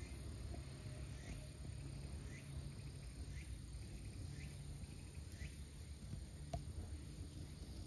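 A small bird calls faintly with a short rising chirp about once a second, over a steady low rumble of outdoor ambience, with one click near the end.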